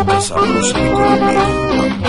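Cumbia music from a 45 rpm record: a horn section with saxophones and trombone playing over a pulsing bass line and a steady beat.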